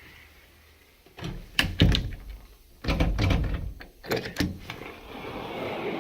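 A commercial door being worked and shut, with sharp knocks and metal latch clicks about a second in and again about four seconds in, and a louder rattling stretch around three seconds.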